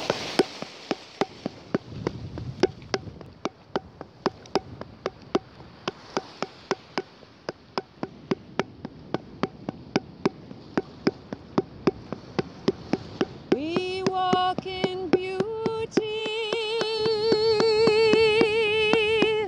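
A steady beat of sharp taps, about two or three a second; about two-thirds of the way through, a woman starts singing long, wavering notes over it.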